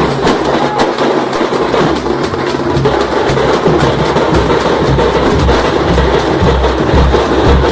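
Percussion-heavy music with rhythmic drumming; the low drum beats grow stronger about halfway through.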